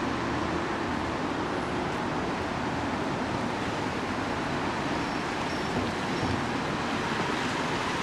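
Steady city street traffic noise: an even, unbroken hiss of passing vehicles with no single event standing out.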